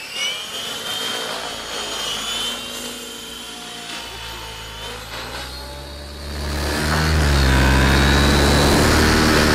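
Thunder Tiger e700 electric radio-control helicopter hovering, its motor and rotor making a steady high whine with rotor noise underneath. About six seconds in, loud music comes in over it.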